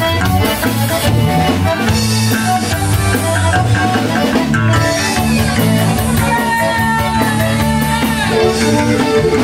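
Live Celtic rock band playing an instrumental tune on button accordion, fiddle, electric bass guitar and drum kit.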